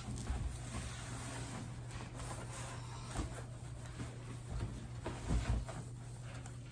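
Handling noises: a few soft knocks and short clicks, strongest about five seconds in, over a steady low hum.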